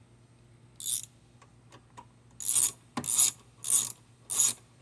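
Ratchet wrench tightening the bolts that hold on a Craftsman push mower's air filter base. One short rasp about a second in and a few faint ticks, then from about halfway a regular run of short ratcheting rasps, a little under two a second.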